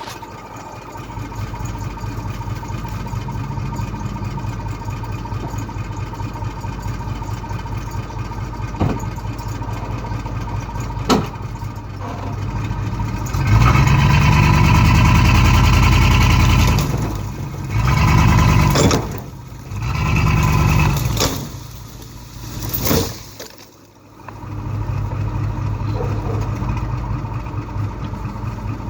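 Truck engine running, then revved hard for a few seconds and in three shorter surges as it pulls a tree over on a chain in four-wheel drive, before settling back to a steady run. A few sharp knocks sound in between.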